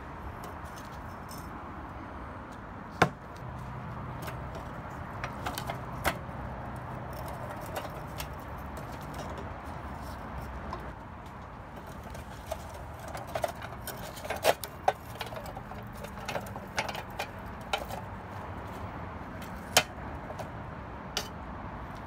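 Steel pliers clinking and scraping against the rusty iron shaft, nut and crank of an antique coffee grinder as old fibre is picked off. The clicks are scattered and sharp, with a quick run of them in the second half, over a steady background hiss.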